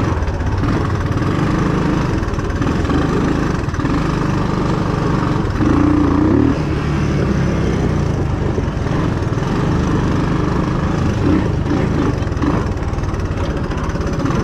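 Small engine of a ridden vehicle running steadily, its pitch shifting with the throttle, with a brief louder rev about six seconds in.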